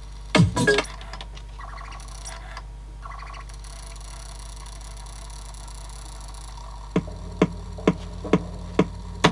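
Sony mini CD player playing music that cuts out after a brief burst about half a second in, leaving only a faint steady hum for several seconds: the player dropping out as it loses its place on the disc, a fault that new rubber suspension has not cured. Near the end, sharp ticks come about twice a second.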